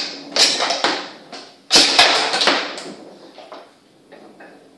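Table football game: the plastic figures strike the ball and the rods bang against the steel table, a few sharp knocks in the first half that fade away toward the end.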